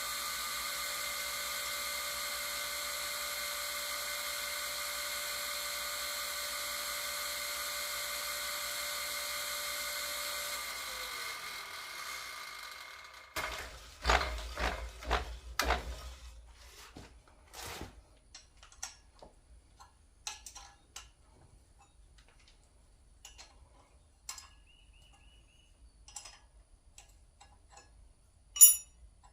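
Drill motor running steadily while drilling a casting, then spinning down about eleven seconds in. A cluster of several knocks follows, then scattered light metallic clicks and taps, one of them sharp and loud near the end.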